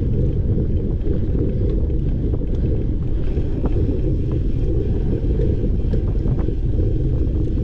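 Steady low wind rumble on the microphone of a camera on a cyclocross bike moving at speed over grass and dirt, with a few faint clicks and rattles.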